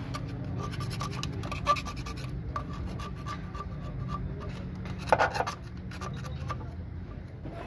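Hands working metal parts in a car's engine bay: rubbing and scraping with scattered light clicks, and a louder short scrape about five seconds in, over a steady low hum.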